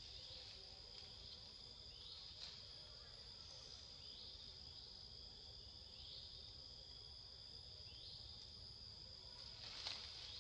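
Faint, steady high-pitched drone of insects in forest, with a short rising chirp every second or two. A brief louder noise comes near the end.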